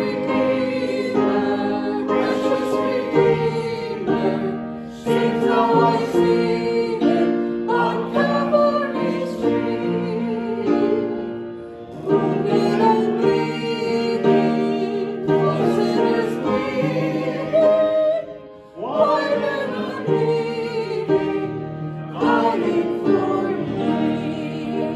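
Church music: singing over held instrumental chords, in phrases with short breaks about halfway through and again near three-quarters of the way.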